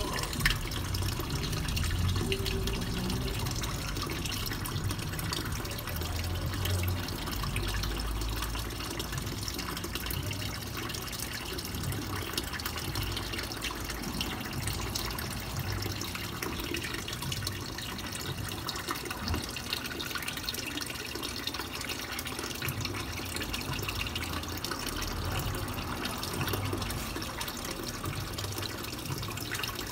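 Steady running water, a continuous splashing flow.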